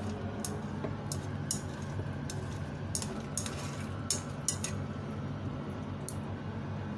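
Cooking utensils knocking and scraping against a frying pan as food is stirred: a dozen or so irregular light clicks over a steady low hum.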